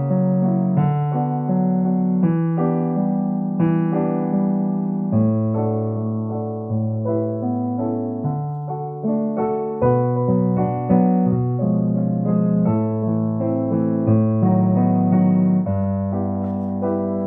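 Piano playing a slow accompaniment part in G major, held bass notes under gently repeated chords, with no solo line over it.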